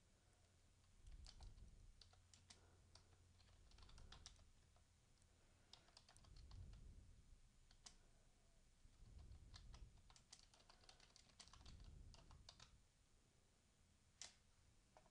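Faint typing on a computer keyboard: runs of quick keystrokes with short pauses between words, and a single sharper click near the end.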